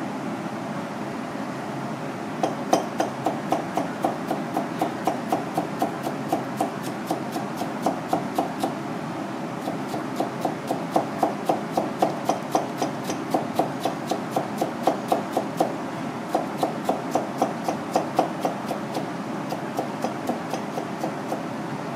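Misono chef's knife slicing a cucumber into thin strips on a plastic cutting board: quick, even knocks of the blade on the board, about three a second. They begin a couple of seconds in, pause briefly twice, and stop a few seconds before the end, over a steady background hum.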